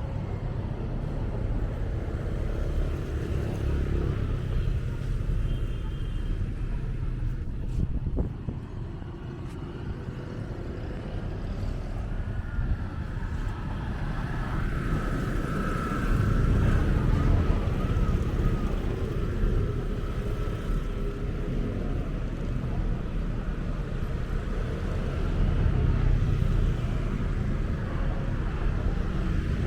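Outdoor street ambience with the steady low rumble of motor traffic, swelling as vehicles pass.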